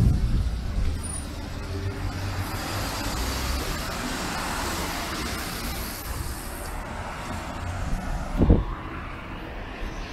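Road traffic: cars passing with engine hum and tyre hiss. A single low thump comes near the end.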